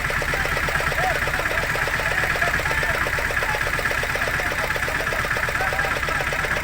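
Fishing boat's engine running steadily at a low, even beat.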